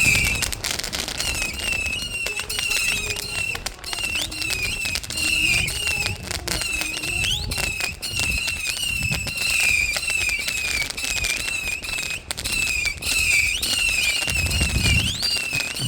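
New Year's Eve fireworks going off continuously: many warbling and rising whistles over dense crackling, with deep booms near the end.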